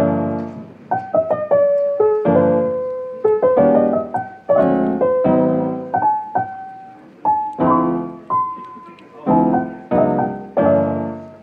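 Background piano music: gentle chords struck one after another, each left to ring and fade.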